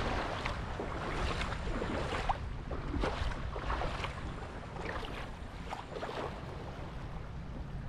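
Shallow lake water lapping and splashing at the shore in irregular small splashes, with a low rumble of wind on the microphone.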